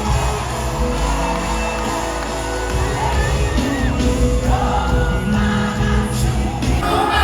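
Live gospel worship music: a band with a steady bass under sung melody lines, with some shouts and whoops from the crowd.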